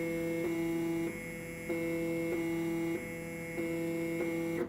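Stepper motor, driven by the controller, running at constant speed on a commanded X-axis move. It gives a steady multi-tone whine with a faint tick roughly every half second, and stops abruptly near the end as the axis reaches its target.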